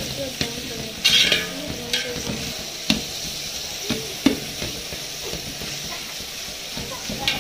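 Sliced onions frying in oil in a large aluminium pot, sizzling steadily, while a long-handled metal ladle stirs them. The ladle scrapes and knocks against the pot several times. The onions were freshly added and are at the start of frying towards pink-brown.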